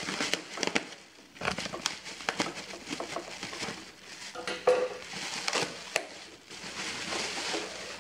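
Plastic packaging and bubble wrap crinkling and rustling as the parcel is cut with scissors and torn open by hand, with many small crackles and clicks.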